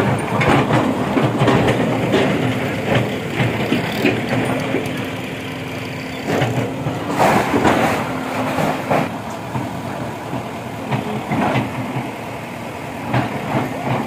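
A backhoe loader's diesel engine running during demolition, with repeated knocks and clatter of debris and breaking masonry over it.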